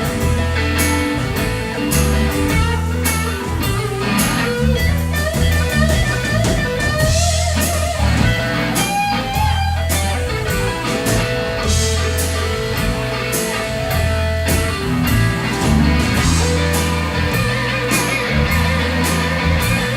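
Blues-rock band playing: electric guitar with held, bending notes over bass and a steady drum beat.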